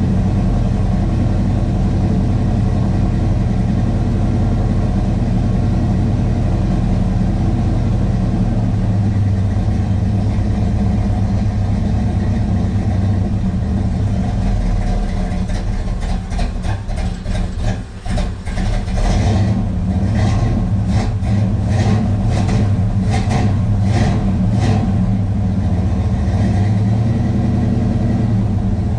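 1968 Pontiac GTO's 400 V8 running cold just after its first start in six months, with no choke fitted. It idles with a deep, steady rumble, stumbles and dips about halfway through, then picks up with a run of short surges.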